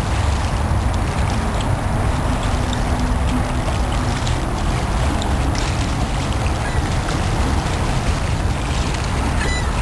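Wind blowing on the microphone, a steady low rumble, over the wash of lake water, with a short bird call near the end.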